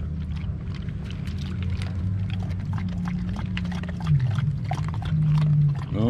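Dogs eating and drinking: a dog chewing food from a hand and another dog lapping water, heard as quick irregular wet clicks, over a steady low hum.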